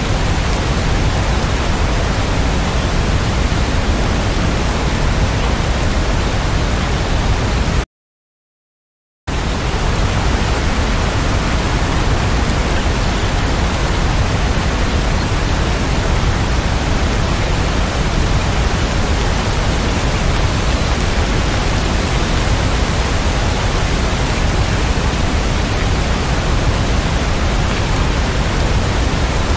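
Steady, even hiss of heavy rain, spread evenly from low to high pitches with no separate drops or thunder. About eight seconds in it cuts out to complete silence for about a second and a half, then resumes at the same level.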